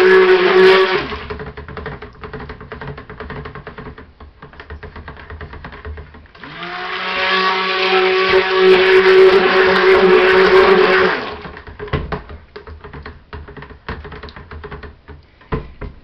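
Stick blender mixing soap batter in a plastic bucket. It runs and cuts off about a second in, then runs again for about five seconds from around six seconds in, spinning up at the start, before stopping. Between and after the runs come scattered knocks.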